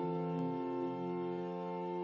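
Pipe organ playing sustained chords, with a bass line that moves to a new note about half a second in and again just under a second in.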